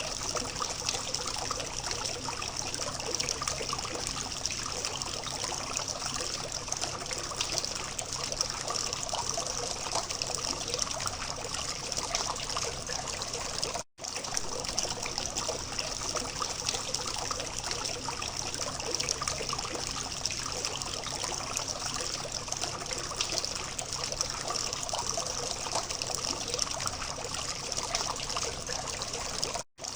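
Water from a small fountain trickling and splashing steadily. The sound drops out for an instant twice, about fourteen seconds in and again near the end.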